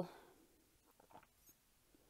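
Near silence, with a few faint clicks from the buttons of a cheap fake Tamagotchi being pressed about a second in.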